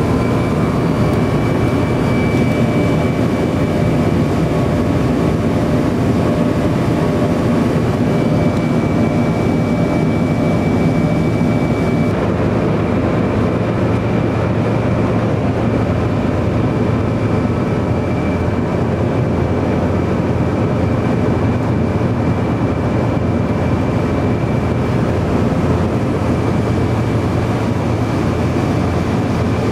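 Steady engine and air noise of a Tupolev Tu-154B-2's three rear-mounted NK-8-2U turbofans, heard inside the passenger cabin, with a thin steady whine on top. The hiss softens slightly about twelve seconds in.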